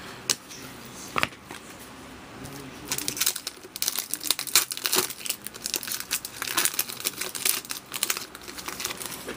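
A couple of light clicks as trading cards are handled, then, from about three seconds in, a dense crinkling of the foil wrapper of an Upper Deck SP Authentic hockey card pack being torn open and handled.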